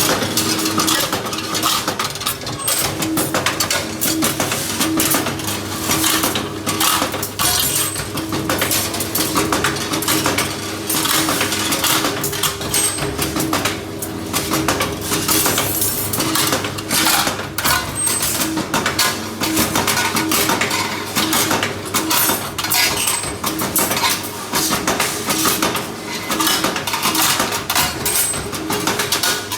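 Automatic rebar straightening and cutting machine running: steel rod clattering and rattling steadily through the straightener over a steady motor hum, with a brief high note about every five seconds.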